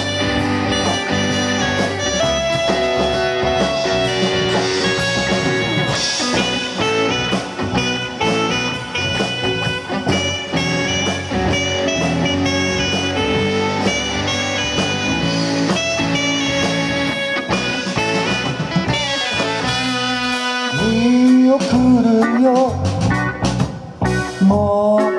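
Live band playing an instrumental passage on guitars, bass, saxophone, keyboard and drums. About twenty seconds in the band thins out, leaving a bending, gliding melody line before the full band comes back near the end.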